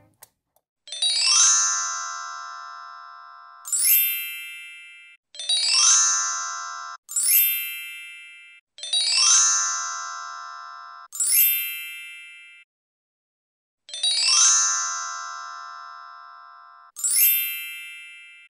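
Twinkling chime sound effect: eight bright, shimmering chime strikes, each ringing and fading, several cut off abruptly just before the next one starts.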